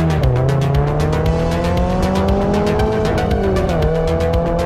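Toyota GR86's naturally aspirated flat-four, fitted with a Cobra cat-back exhaust, pulling hard through the gears. Its pitch climbs steadily and drops sharply at an upshift just after the start and again about four seconds in. Background music with a steady beat plays over it.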